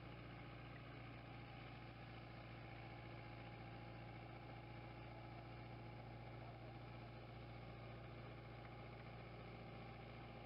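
Faint, steady drone of a farm tractor's diesel engine running at constant speed while it works a field sprayer.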